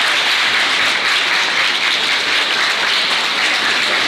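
A roomful of teenagers applauding steadily.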